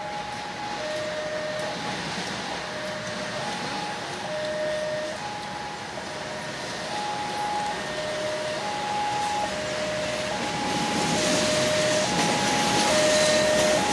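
Level-crossing warning signal sounding a steady two-tone alternation, a higher and a lower note of a bit under a second each. Under it, a KAI diesel locomotive's running noise grows louder over the second half as it approaches.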